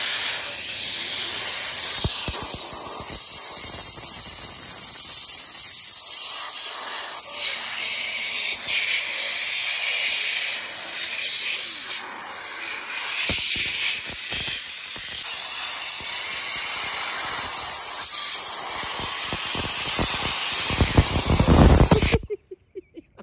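Handheld spray gun hissing steadily as its jet blasts caked mud off a car A/C blower fan wheel. The hiss swells just before the end and then cuts off suddenly.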